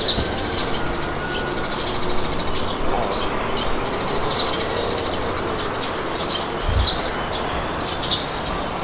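Wind blowing steadily, with birds chirping in short, scattered calls over it.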